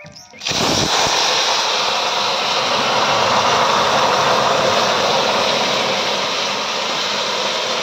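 Boiled greens and their cooking water poured into hot oil tempered with dry red chillies and cumin in a wok, setting off a loud, steady sizzle that starts suddenly about half a second in.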